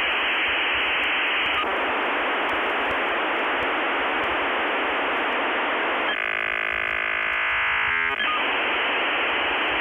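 Steady, radio-like static hiss used as a VHS glitch effect. About six seconds in it gives way for about two seconds to a harsh electronic buzz of many steady tones, then the static comes back.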